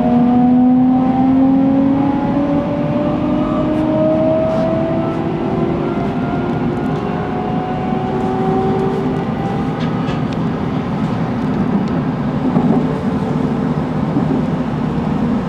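Toshiba GTO-VVVF inverter of a JR Kyushu 813 series electric train whining in several tones that slowly rise together as the train accelerates. The whine fades out about nine seconds in, leaving the steady rumble of the train running at speed, heard from inside the car just behind the cab.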